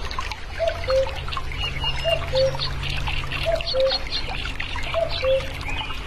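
Common cuckoo calling its two-note "cu-coo", the second note lower, four times at about a second and a half apart. Under it runs a steady trickle of water, with high chirps from other small birds.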